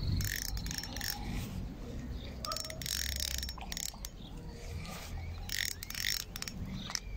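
Spinning reel clicking irregularly while a hooked carp is played on a light rod.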